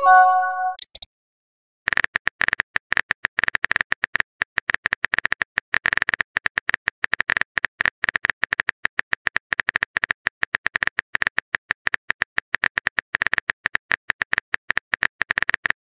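Message-arrival chime of a few short tones, then from about two seconds in a long run of rapid typing clicks from a keyboard sound effect.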